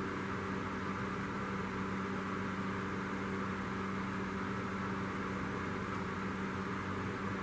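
Steady electrical hum with a low buzzing tone, over a constant hiss.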